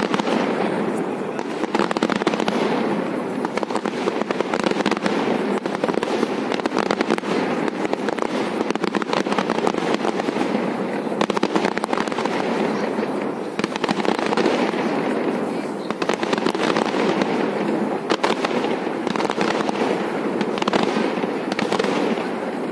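Fireworks going off in a dense, continuous crackle of many rapid small pops. It swells and dips a few times and dies away at the end.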